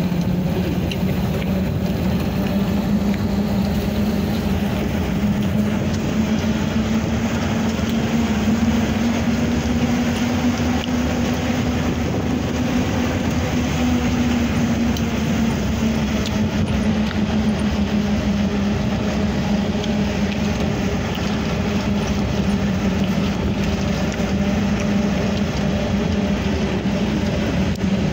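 A vehicle's engine running steadily on the move, over continuous road and wind noise. Its pitch rises a little towards the middle and settles back lower near the end.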